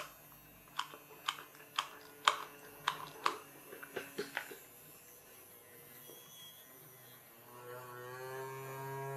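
A dozen or so sharp clicks from a hot glue gun and its handling. Near the end a small DC hobby motor, running on two batteries (3 volts), starts up with a steady hum that grows louder.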